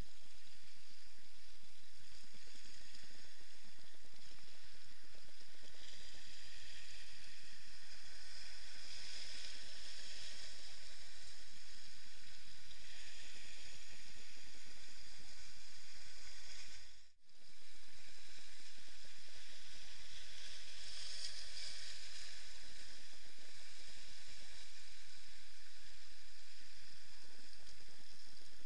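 Sea water washing and fizzing against shoreline rocks, heard muffled with a steady hiss, as through an action camera's waterproof housing. The sound drops out briefly a little past halfway.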